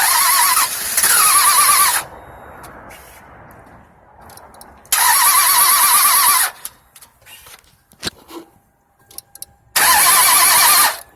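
A 1998 Toyota Avalon's 3.0-litre V6 cranked on the starter three times, each try about one and a half to two seconds, and it never fires. The engine turns over without starting after a timing belt replacement, with the camshafts turning.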